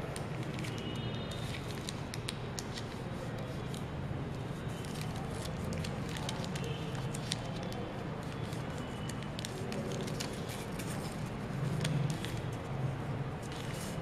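A sheet of paper rustling and crackling as it is folded and pressed flat by hand, with irregular small crinkles and clicks throughout.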